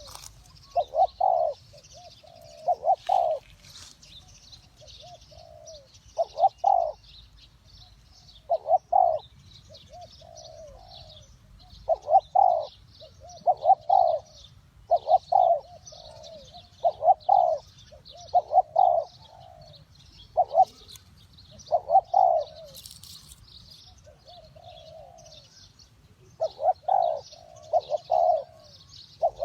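Spotted doves cooing: short phrases of two or three rolling coos, repeated every second or two, with faint high chirping behind.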